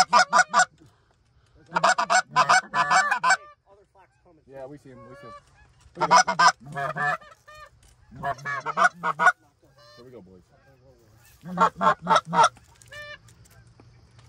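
Canada goose honking: five loud bursts of rapid honks and clucks every two to four seconds, with fainter honks in the gaps between them.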